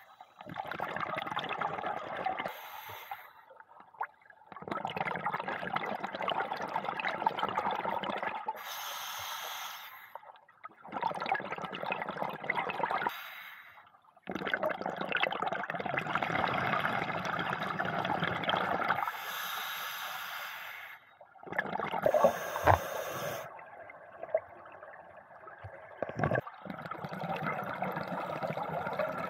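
Scuba diver breathing through a regulator underwater: long bubbling exhalations every few seconds, each followed by a short high hiss of inhalation. A few sharp knocks sound about three-quarters of the way through.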